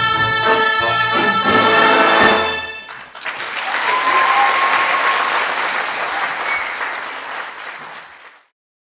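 Orchestral-style music ending about three seconds in, followed by audience applause that fades out shortly before the end.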